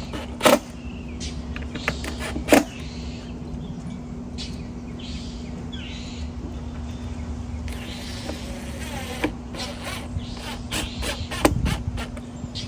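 Sharp clicks and knocks from hands and tools working on a subwoofer being screwed into a carpeted ported box: two loud clicks in the first few seconds and a heavier thump near the end, over a steady low hum.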